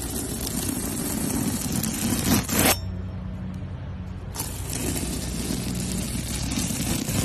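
Knife blade drawn through soft foam, making a long scraping hiss twice: the first stroke ends under three seconds in and the next starts about a second and a half later. A low steady hum runs underneath.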